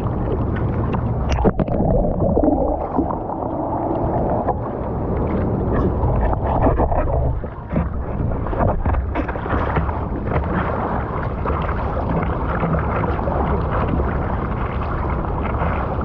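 Surf water rushing and splashing close to the microphone, with a steady low rumble throughout and a few sharp knocks.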